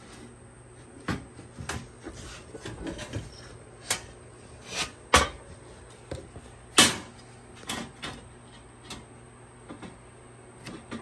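Irregular knocks and clunks of a radiator and its plastic fan shroud being set down and shifted into a metal mounting bracket, with two sharper knocks about halfway through the loudest.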